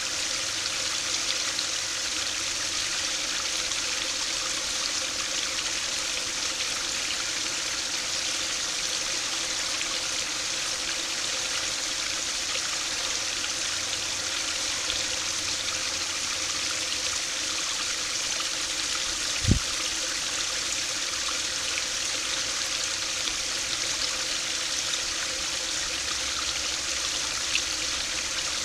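Small stream pouring in a thin sheet over a low weir step into a pool: a steady splashing trickle. A single brief low thump comes about two-thirds of the way through.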